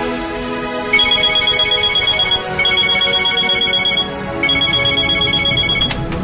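Telephone ringing with a pulsing electronic trill, three rings each about a second and a half long with short gaps, over soft background music.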